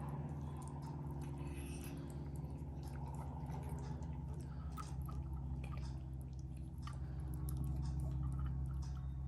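Kittens eating, with small wet chewing and smacking clicks that come irregularly all through, over a steady low hum.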